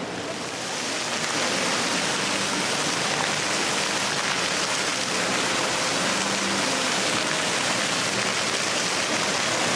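Fountain jets splashing into a pool: a steady rush of falling water, fading up over the first second.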